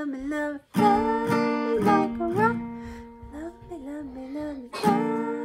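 Acoustic guitar strumming a handful of chords that ring on between strokes, closing out a song.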